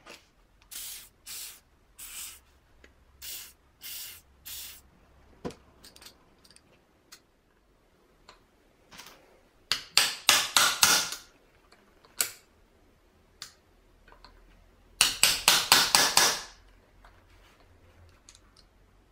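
An aerosol can sprays in about six short bursts onto the throttle body's bolts. Later come two quick runs of sharp metallic taps, about a second and a half each, as a hammer strikes the idle speed control valve's bolts to loosen them so they come out without stripping.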